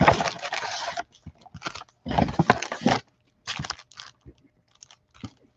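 Foil trading-card packs and box packaging crinkling and rustling as they are handled, in three bursts of about a second each, then a few faint ticks near the end.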